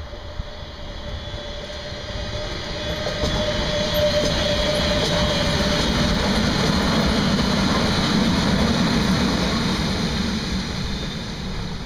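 A string of coupled DB electric locomotives rolling past. The wheels rumble and clatter on the rails, growing louder as the engines draw alongside, then fading near the end as they move away.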